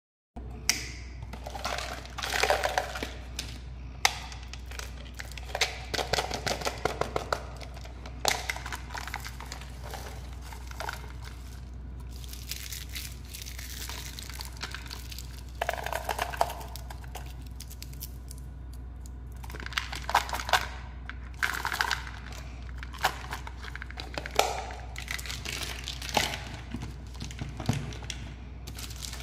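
Plastic candy wrappers crinkling and rustling in irregular bursts as hands handle and sort a pile of packaged sweets and plastic toys, with sharp clicks of plastic knocking together. A steady low hum runs underneath.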